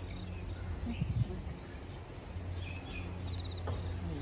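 A few faint, short chirps from Australian birds over a steady low background hum.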